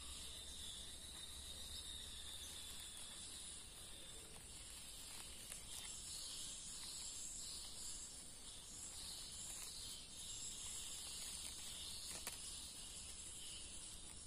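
Faint, steady high-pitched buzzing of an insect chorus, with a few faint ticks.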